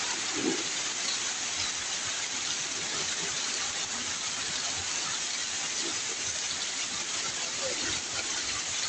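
Heavy downpour: rainwater pouring off the edge of a corrugated roof in a continuous sheet and splashing onto the ground, a steady, even rush.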